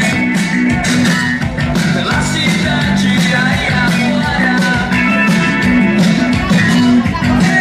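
Loud music with a steady beat, heavy bass and guitar, and a singing voice.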